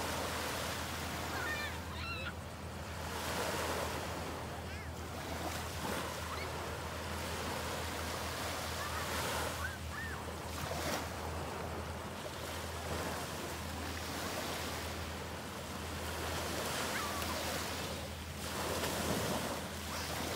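Small waves breaking and washing up onto a sandy shore, the wash rising and falling every few seconds.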